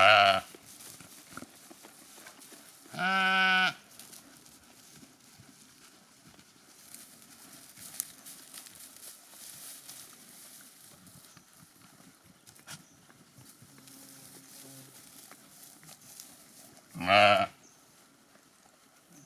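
Sheep bleating three times: a short bleat at the very start, a longer, drawn-out one about three seconds in, and another short one near the end. Between the calls there is only faint rustling and a few small clicks.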